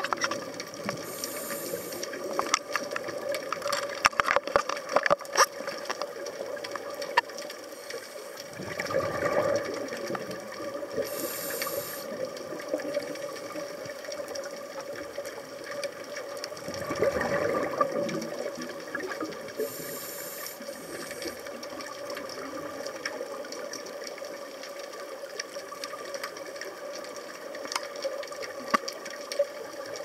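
Underwater scuba ambience of a diver breathing through a regulator: short hisses on inhaling and a rush of exhaled bubbles every several seconds, over a steady hum, with a few clicks about four seconds in.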